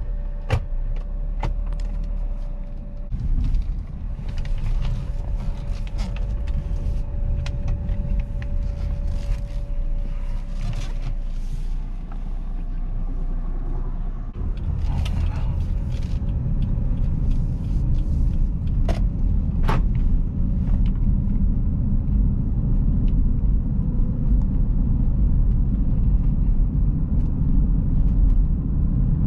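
2011 Jeep Grand Cherokee V6 4x4 on the move, heard from inside: a steady low rumble of engine and road noise with a faint whine in the first half and a few light clicks and knocks. It grows louder about halfway through as the vehicle speeds up.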